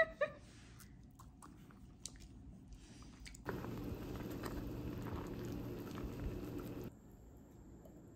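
A short yelp right at the start, then soft scattered clicks of an Italian greyhound chewing a piece of chicken. About three and a half seconds in, a pot of noodle soup on the stove gives a steady rush with a low hum for about three seconds while a ladle stirs it, then it cuts to quiet.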